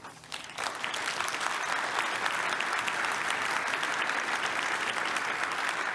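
Audience applauding. The clapping starts just after the start, holds steady, and begins to fade near the end.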